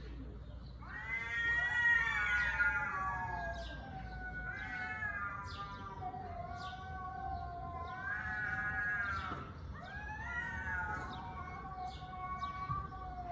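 Cat yowling: a series of long, drawn-out, wavering cries one after another, the first and loudest about a second in. Short high chirps tick behind them throughout.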